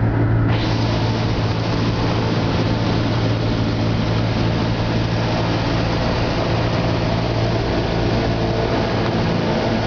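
Cessna 172S's four-cylinder Lycoming IO-360 engine and propeller, running steadily with a deep drone, heard from inside the cockpit. A steady hiss grows louder about half a second in.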